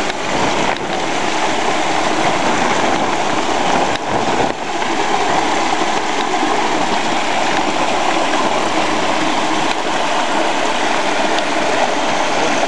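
Steady, loud rushing of a heavy rainstorm: rain falling and runoff water streaming over a broken cobblestone road.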